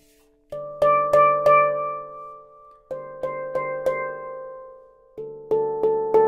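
A 12-note handpan tuned to D Hijazz being played with the fingers: three runs of about four quick strikes, each run on a lower note, the notes ringing on between strikes over a low, steady hum.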